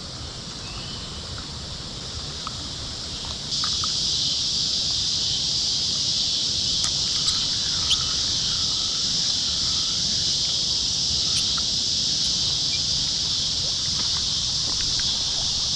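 Steady high-pitched insect chorus, stepping up louder about three and a half seconds in, with a few faint clicks and a low steady rush underneath.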